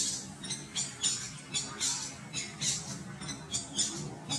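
A bird calling in short, high, rapidly repeated squawks, about three a second, evenly spaced.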